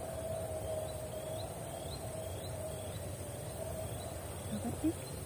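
Quiet wild-swamp ambience: a series of short, high, rising animal chirps, about two a second, over a faint steady hum.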